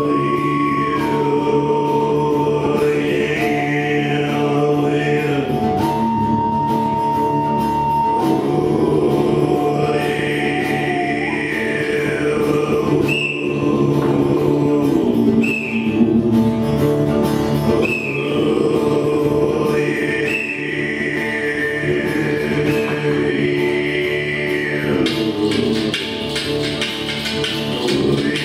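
Live drone-based ambient music: a thick sustained drone under a slow melody of long held notes that step from one pitch to the next, then slow swooping, wavering tones above it, with a choir-like, chanting character.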